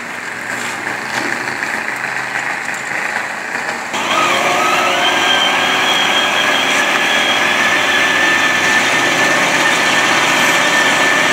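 Mud truck's engine running hard at high revs as it churns through a mud pit. About four seconds in it suddenly gets louder and holds a steady high whine.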